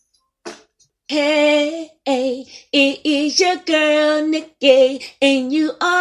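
A woman singing in short held phrases with no instruments behind her, starting about a second in after a brief pause.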